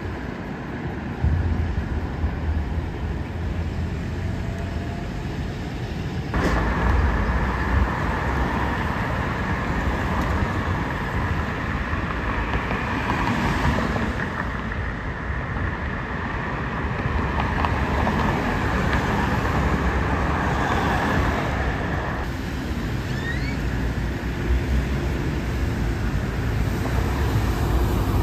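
Road traffic with city buses: a steady low engine rumble of buses and passing cars. The background changes abruptly twice, about six seconds in and again later on.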